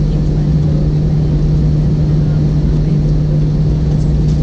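Airbus A321 cabin noise while taxiing on the ground, heard from inside: the engines run at low power as a steady low hum over a constant rumble.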